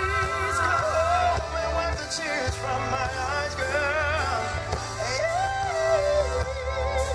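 Live R&B band performing: a male singer holds long, wavering sung notes over keyboards, bass and drums.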